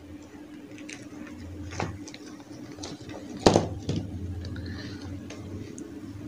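Hard plastic toy animal figures clicking and knocking as they are handled and set down on a table, with plastic wrapping rustling; one sharper knock comes about halfway through.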